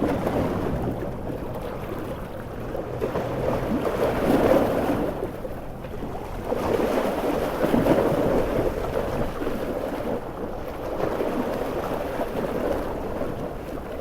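Stormy sea: large ocean waves surging and breaking in a dense rushing wash, swelling loudest about four and again about eight seconds in, with heavy rain beneath.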